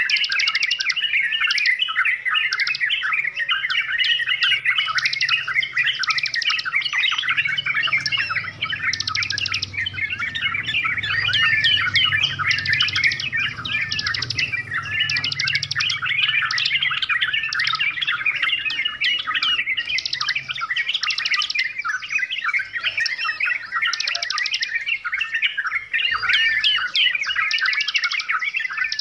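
Yellow-vented bulbuls singing without a break: a dense, busy stream of bubbly chirps and whistles, cut through again and again by short, fast rattling trills.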